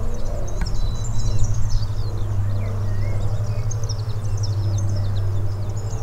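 Many small birds chirping in quick, high, short calls over a steady low hum.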